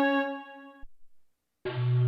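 Kurzweil K2vx synthesizer presets: a held keyboard note with a rich stack of harmonics fades and stops just under a second in, with a small click as it ends. After a brief silence, a new, lower sustained note starts at about a second and a half.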